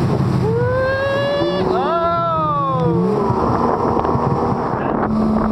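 Yamaha jet ski engine revving under throttle: its note climbs about half a second in, jumps sharply higher near two seconds, then falls away by three seconds and settles to a steadier lower note, over a constant rush of wind and water.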